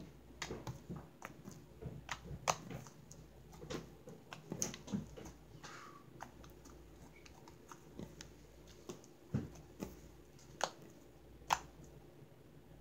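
Butter slime being kneaded and pressed by hand, giving irregular sharp sticky clicks and small pops as it pulls off the fingers and the tabletop, thicker in the first half and sparser later.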